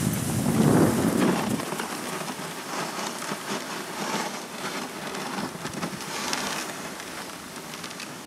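Steady rushing noise of a dog sled moving along a snowy trail: the runners hiss over the snow and wind buffets the microphone, heaviest in the first second or two and slowly easing.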